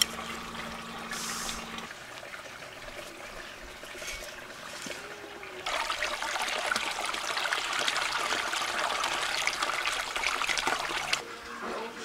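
Running, splashing water, a dense hiss with fine crackle that starts suddenly about six seconds in and stops abruptly about five seconds later; a fainter, softer noise comes before it.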